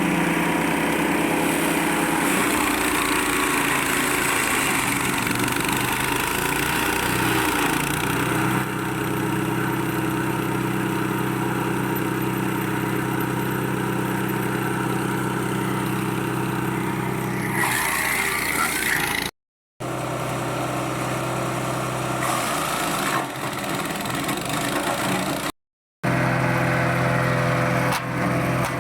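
A KisanKraft wood chipper's 7 hp petrol engine runs steadily. There is a brief rush of noise about two-thirds of the way through, and the sound cuts out twice for a moment.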